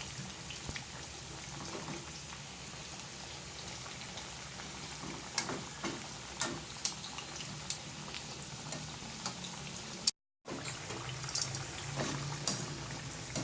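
Sweet potato chunks frying in oil over low heat: a steady bubbling with scattered sharp pops and crackles. It breaks off briefly about ten seconds in.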